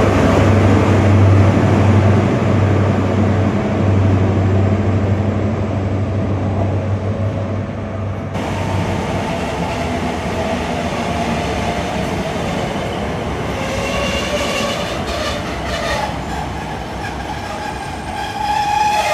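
Diesel trains at a station platform: first a GWR Class 43 HST power car's engine running with a deep steady hum, then a GWR Class 150 diesel multiple unit moving along the track, with a high-pitched squealing whine of several tones that builds over the last few seconds.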